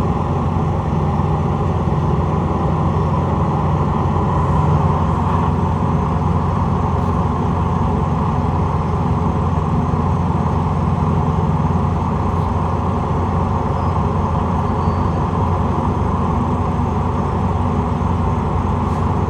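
Steady low hum of an idling vehicle engine that runs on without change.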